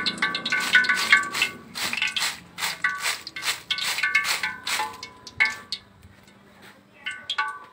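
Stainless steel mesh strainer clanking with a brief metallic ring, about two or three strikes a second, as crisp fried potato slices are shaken and tossed in it. The clanking stops for about a second and a half, then a few more strikes come near the end.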